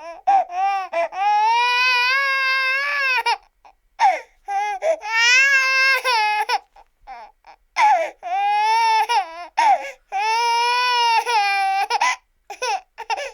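An infant crying hard, in about four long, high wails of two to three seconds each, broken by short catching breaths and a few brief sobs near the start.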